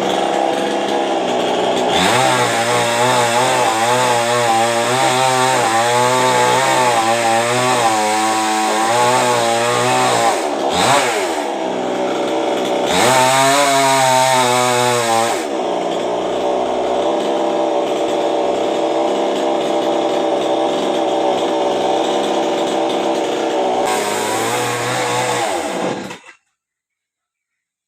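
Two-stroke chainsaw running under load while cutting a coconut tree, its engine pitch wavering up and down as the chain bites. The engine briefly dips and picks up again about halfway through, then runs steady until the sound cuts off suddenly near the end.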